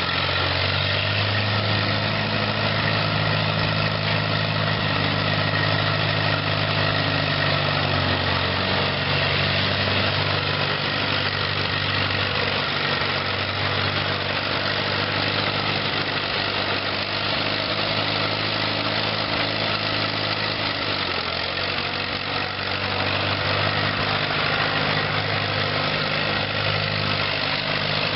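Allis-Chalmers WD tractor's four-cylinder gas engine running steadily as the tractor is driven slowly around. Its note and level shift briefly about three quarters of the way through.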